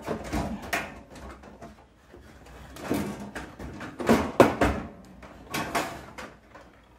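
Black plastic carry handles being pushed and wiggled on the red sheet-metal case of an Anbull diesel air heater: irregular knocks, clicks and rattles, loudest about four seconds in.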